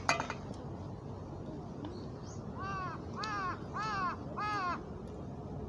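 A crow cawing four times in quick succession, each caw rising and falling in pitch, starting about two and a half seconds in. A short sharp click comes right at the start.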